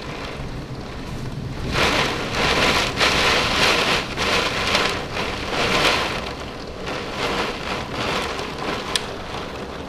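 Torrential thunderstorm downpour, a dense steady rush of heavy rain. It swells much louder about two seconds in and eases again after about six seconds.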